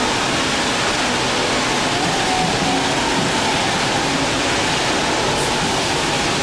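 Steady, even rushing noise of air-conditioning in a chilled indoor hall.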